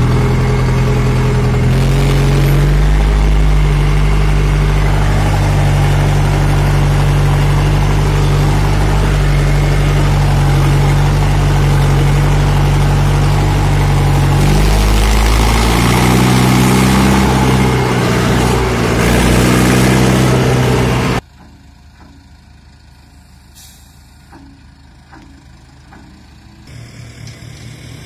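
Farmtrac 675DTN tractor engine running under load, heard from inside the cab, hauling trailers of bales that are sinking into soft ground. Its pitch shifts about two seconds in and several times more near the end, then the sound cuts off suddenly about 21 seconds in.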